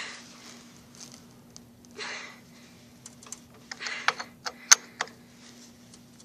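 Metal clinking and scraping from hand tools on a go-kart wheel's axle nut as it is tightened: a few short scraping bursts and several sharp metallic clicks.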